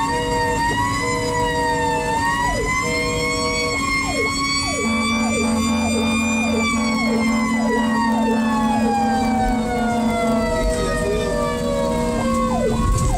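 Fire engine sirens sounding on an emergency run: a slow wailing siren that rises for about six seconds and then winds down. It is layered with a rapid repeating sweep and steady low tones, over the truck's engine rumble.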